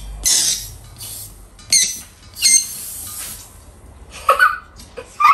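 Helium hissing in several short bursts from the nozzle of a disposable balloon-filling tank as a balloon is inflated, with a brief squeak a little after four seconds in.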